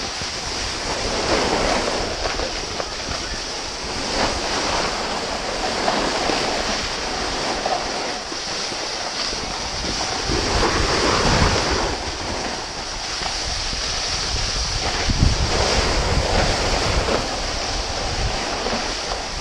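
Wind buffeting a GoPro's microphone while riding down a ski slope, with the steady hiss and scrape of snow under the rider, rising and falling in gusty rumbles.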